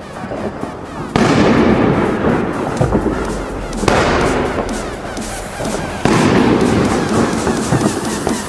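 Hammer & Anvil 2-inch firework rack firing its white glitter mine shots: three sudden bangs, about a second in, near the middle and about six seconds in. Each bang is followed by a couple of seconds of dense crackling that fades away.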